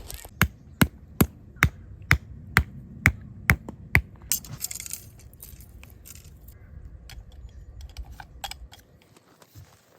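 A run of about nine sharp, evenly spaced knocks on something hard, a little over two a second, stopping about four seconds in, followed by a few fainter scattered clicks.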